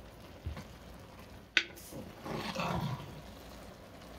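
A spoon stirring rice and beans in a hot metal pot. One sharp clink of the spoon against the pot comes about a second and a half in, followed by about a second of louder stirring noise.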